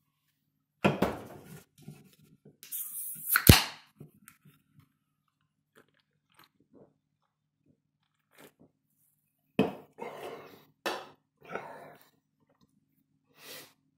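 A soda can (Dr Pepper 10) is cracked open: a fizzing hiss ending in one sharp crack about three and a half seconds in. Several shorter noisy sounds follow near the end.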